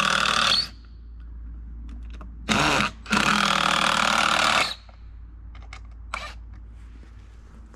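Stihl two-stroke chainsaw revved in short bursts: one ending just after the start, a brief one about two and a half seconds in, and a longer one of about a second and a half right after it, with quieter stretches between.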